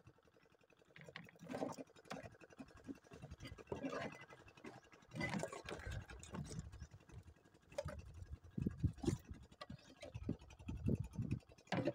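Hooped mesh fish trap being handled and emptied in a wooden boat: irregular rustling and scraping of the net, with uneven knocks and thumps against the boards, heaviest in the second half.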